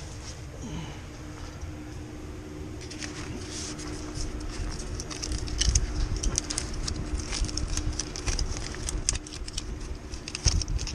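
Quick light clicking and rattling of metal tools being handled, growing busier from about three seconds in, over a steady low hum.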